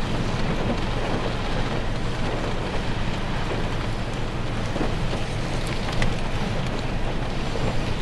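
Gale-force wind blowing on the microphone over rough, choppy lake water: a steady, dense rush.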